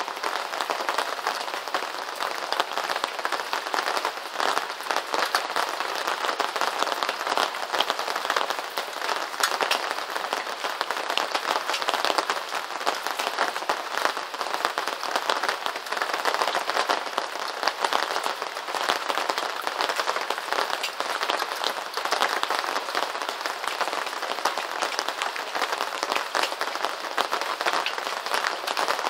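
Steady rain falling on a hard surface: a dense, even crackle of many small drop impacts that holds unchanged throughout.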